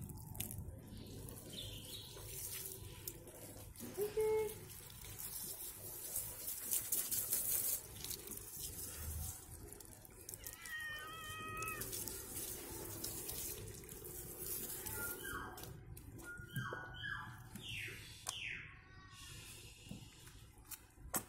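Water running from a garden hose over a wet long-haired cat and splashing onto concrete while its fur is rubbed by hand, with a louder spell of spray hiss about a third of the way in. A few short high chirping calls come around the middle and again near the end.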